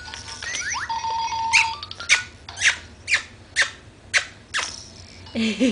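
Baby swing squeaking in a steady rhythm, about two short squeaks a second, as it rocks back and forth.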